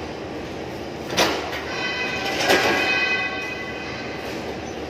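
Construction-site din: a steady machine drone with a high whine that fades in and out, and two sharp knocks, about one and two and a half seconds in.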